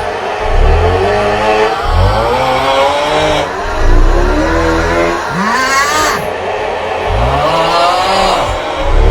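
The 'Aughhhh' snoring meme sound on repeat: a person's loud, drawn-out groaning snore, its pitch sweeping up and then down, coming again and again every second or two over a heavy low rumble.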